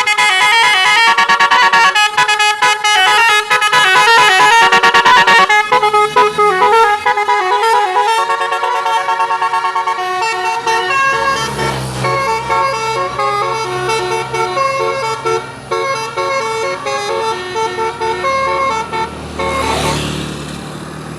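Bus 'telolet' multi-tone musical horn sounding a quick melody of short chiming notes that change pitch in steps. A low engine rumble joins under the horn about halfway through.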